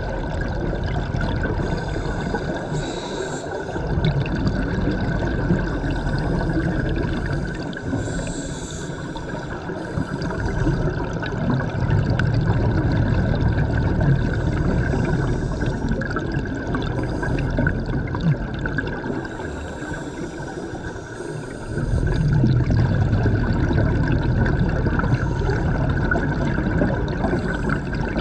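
A scuba diver breathing through a regulator, heard underwater: exhaled bubbles rumble and gurgle in stretches of a few seconds, with short hisses between them.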